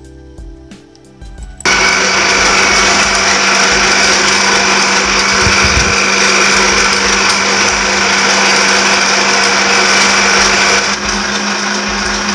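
Kirin stand mixer switched on about a second and a half in, its motor running steadily as it beats eggs, sugar and SP emulsifier in a steel bowl, a little quieter near the end. Soft background music before it starts.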